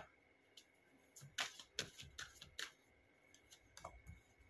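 Oracle/tarot cards being handled in the hand: soft, sharp clicks and snaps of card against card, a run of several in quick succession from about a second and a half in, and a couple more near the end.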